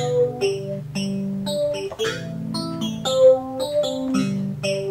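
Yamaha Reface DX FM synthesizer played through its small built-in speakers: held chords in the low register change about once a second, with a melody of short notes above them.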